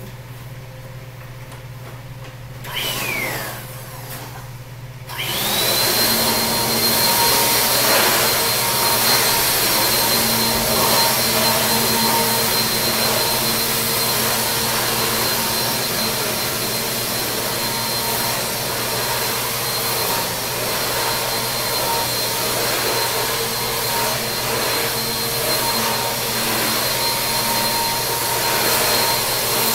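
Vacuum cleaner run briefly about three seconds in, its whine falling as it winds down. It is switched on again about five seconds in and runs steadily with a high whine.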